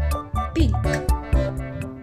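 Bouncy children's background music with a steady beat, with a short spoken word over it.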